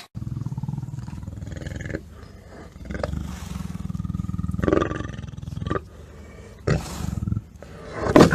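A big cat giving a low, pulsing roar-rumble in three stretches, the last one short.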